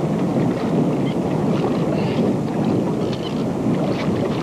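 Wind buffeting the microphone: a steady, rough rumble.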